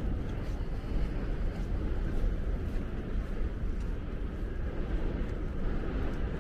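Outdoor city noise: a steady low rumble with no distinct events.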